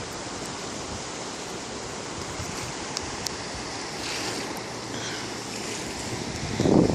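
Steady rushing wind outdoors, with a louder gust buffeting the microphone near the end.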